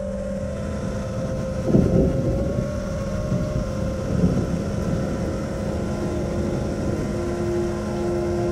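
FPV racing quadcopter's brushless motors and propellers whining steadily with wind rush, as picked up by the onboard camera, with a brief louder surge about two seconds in.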